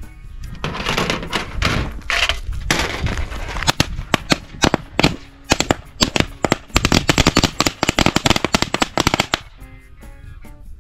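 A string of firecrackers going off: a fast, uneven run of sharp cracks lasting about six seconds, after a couple of seconds of hiss.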